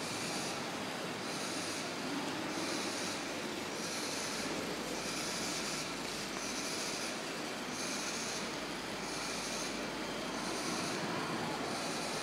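Small wheeled kit robot's electric gear motors running steadily as it drives, with a high hiss that pulses about once a second.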